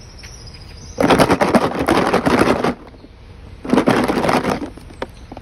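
Dog treats shaken hard in their package: two bursts of rapid rattling, the first about a second in and lasting nearly two seconds, the second shorter, near four seconds in.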